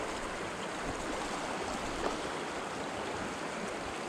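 Fast-flowing river rushing steadily, running high and fast with snowmelt and heavy rain, with a faint click about two seconds in.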